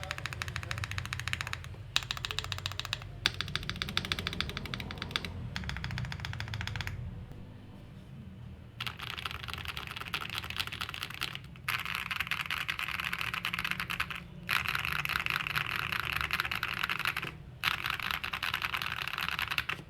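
Typing on a CIY GAS67 mechanical keyboard with tape mod, lubed Akko V3 Cream Blue tactile switches and doubleshot ABS keycaps: quick runs of keystrokes broken by short pauses, the longest lull about seven seconds in.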